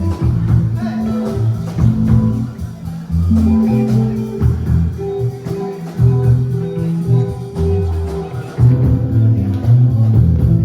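Amplified live band music: a prominent stepping bass line, drums and guitar.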